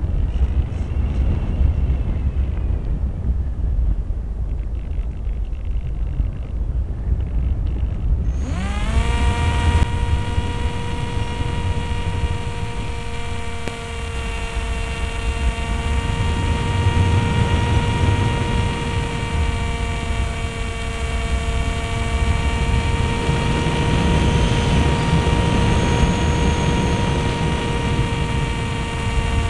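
Wind rushing over an onboard camera microphone on a Multiplex Easy Star RC glider with its electric motor off. About eight seconds in, the motor and pusher propeller start, and the whine rises quickly to a steady pitch. It holds there, with wind noise underneath.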